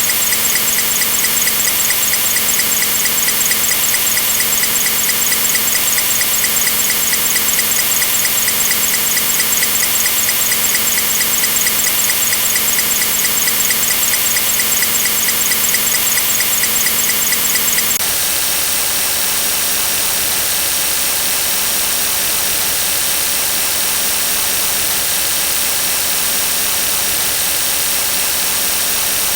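Loud, harsh, steady noise with a fast rapid pulse running through it; about eighteen seconds in it switches abruptly to a smoother, even hiss.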